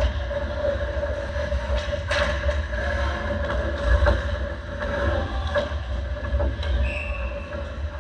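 Ice hockey skates scraping and carving the ice, with sticks and puck knocking, over a steady hum. The loudest knock comes about four seconds in as a player shoots at the net, and there is a brief high squeal near the end.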